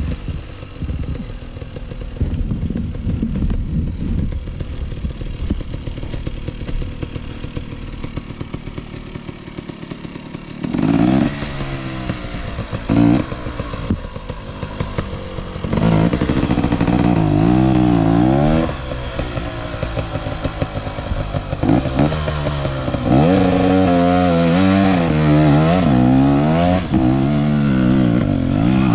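Dirt bike engine running low at first, then from about ten seconds in revving hard, the revs climbing and falling again and again as the throttle is worked, with a few short breaks.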